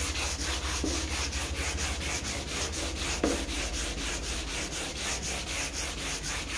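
Hand sanding block with 400-grit wet sandpaper scrubbing back and forth over the wet, freshly painted sheet metal of a Ford F-250 cab, in quick even strokes about four a second. The paint is being blocked smooth.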